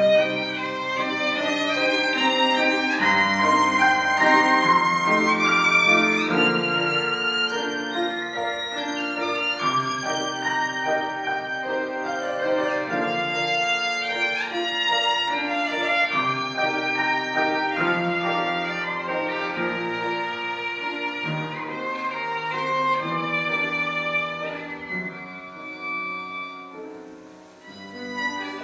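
Violin playing a melody over piano accompaniment. Near the end the music drops to a brief quiet moment, then picks up again.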